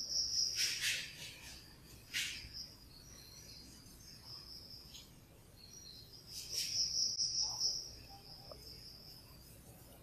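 Insects trilling at a high pitch, the sound swelling and fading. Scratchy chalk strokes on a blackboard come near the start, at about two seconds, and again around six to seven seconds in.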